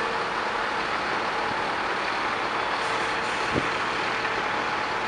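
Heavy diesel dump trucks and snow-removal equipment running in a steady din, with a short high hiss about three seconds in and a single knock just after.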